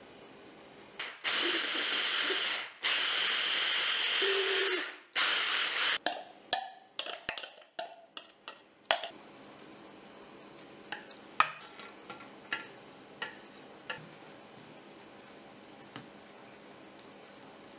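A small electric blender or chopper runs in three loud bursts, close together, about a second in. Then come scattered sharp taps and clicks of utensils against a stainless steel bowl: a cluster as the mixture is tipped and scraped out, then single clicks of chopsticks stirring.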